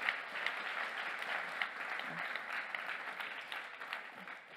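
Audience applauding, fading away near the end.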